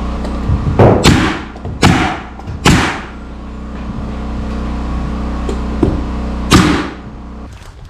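Hammer blows on wood in construction framing: a quick pair of sharp strikes about a second in, two more at roughly one-second spacing, then one last strike near the end, each ringing briefly. Under them a steady low hum runs and cuts out shortly before the end.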